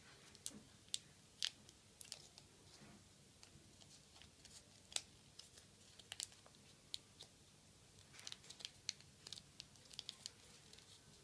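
Faint, scattered crinkles and crackles of origami paper being folded and pulled by hand as the petals of a paper lotus are worked, with a denser run of crackles near the end.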